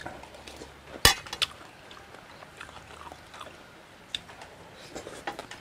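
A metal spoon clinks sharply against a stainless-steel serving tray about a second in, with a smaller clink just after, then quiet chewing and a few small clicks near the end.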